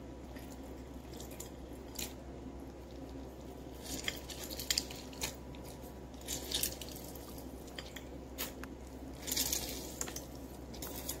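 A lemon half squeezed by hand over a glass dish: wet squishing of the fruit, with juice dripping and splashing into the oil in the dish in irregular spurts. A steady low hum runs underneath.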